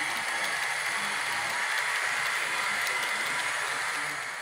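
Model freight train cars rolling past on sectional track: a steady rattle of small metal wheels on the rails.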